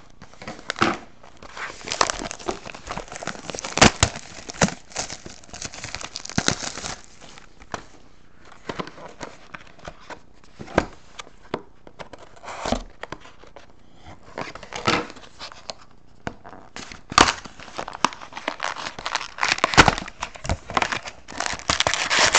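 Plastic wrapping being cut and torn off a sealed trading-card box, with irregular crinkling and crackling and a few sharp snaps. Near the end the box opens and the foil card packs inside rustle.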